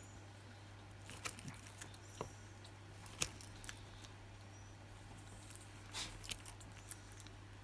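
Chinese water dragon eating calci worms from a plastic tub: scattered small, sharp clicks and taps as it snaps up worms and chews, the sharpest about three seconds in, over a steady low hum.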